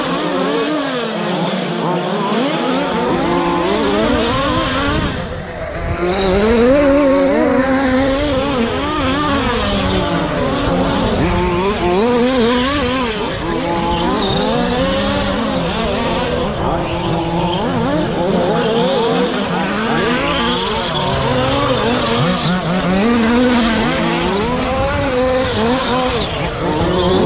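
Several radio-controlled short course trucks racing, their motors whining and constantly rising and falling in pitch as they accelerate and slow through the corners, with a brief lull about five seconds in.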